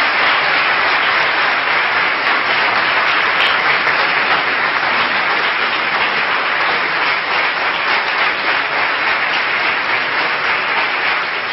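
Audience applauding steadily, a dense, unbroken clapping that greets the close of a speech.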